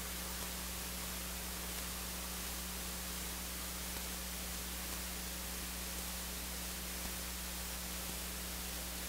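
Steady hiss with a low, steady hum underneath: the background noise of the recording, with no distinct event in it.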